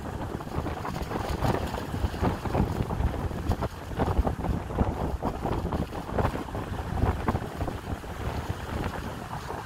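Wind buffeting the microphone, an uneven low rumble that surges in short gusts.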